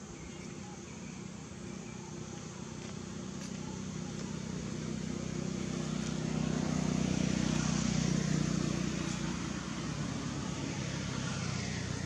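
A motor vehicle's engine running with a steady low hum, swelling to its loudest about two-thirds of the way through and then easing off a little, as if passing by.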